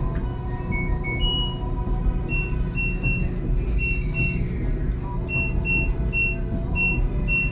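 LG top-load washing machine's control panel beeping as its cycle-selector dial is turned: about a dozen short electronic beeps at irregular intervals, with one longer, higher beep about a second in.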